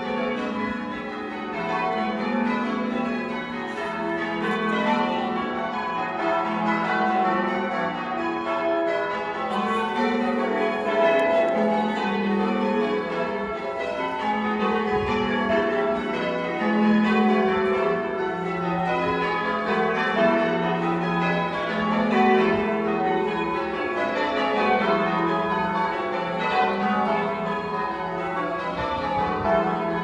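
The tower bells of St Mary de Castro church being rung in changes: a continuous rolling sequence of bells struck one after another, their tones overlapping, with no pause.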